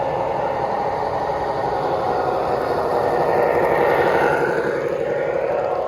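Three-rail model train running on the layout track, a steady rumble of wheels and motor that grows louder as the train comes close about four seconds in, then eases off.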